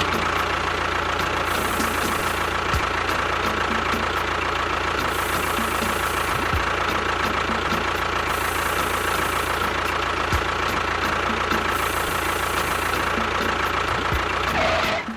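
A motor running steadily at an unchanging level, with a steady whine above the drone and a few faint thuds.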